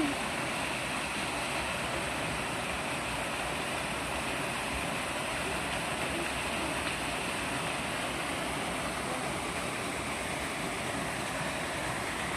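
Flowing water rushing steadily, like a stream or small waterfall, with no breaks or changes.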